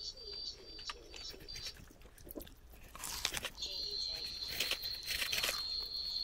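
Faint clicks of chopsticks and chewing as noodles are lifted from the pot and eaten, growing busier after about three seconds. A steady high whine comes in at about three and a half seconds.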